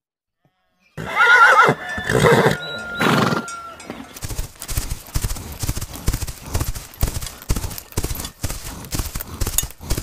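Horses neighing, a few loud wavering whinnies starting about a second in, then a herd of horses and foals galloping on grass, hooves drumming in a fast, uneven patter.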